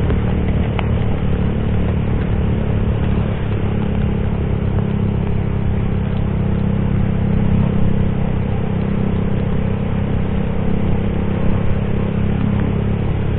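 Small sport motorcycle engine running steadily at cruising speed, under a steady hiss of rain and tyres on a flooded wet road.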